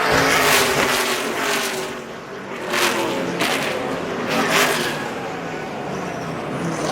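NASCAR Cup stock cars running at speed, their V8 engines droning steadily, with several rushes of sound as cars go by one after another.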